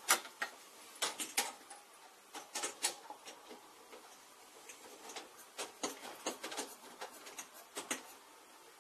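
A hand screwdriver turning a small screw into an aluminium lever frame: irregular small metallic clicks and scratches, with no steady rhythm.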